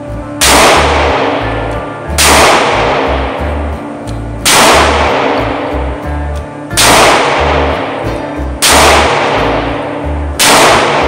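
Six shots from a Taurus 856 .38 Special revolver firing 110-grain JHP +P rounds, about two seconds apart. Each shot rings on in a long echo off the indoor range. Background music plays underneath.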